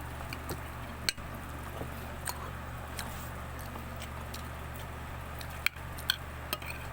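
People eating a meal: chewing with scattered sharp clicks of utensils, over a steady low hum.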